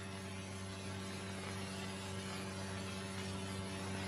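Steady electrical mains hum with background hiss, the noise floor of the soundtrack, unchanging throughout.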